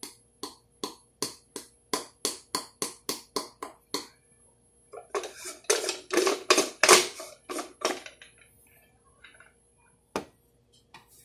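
Ground coffee being knocked out of a hand coffee grinder into an AeroPress chamber: a run of sharp taps, about three a second, for about four seconds. Then a few seconds of louder rough rattling and scraping as the grinder is handled, and a single click near the end.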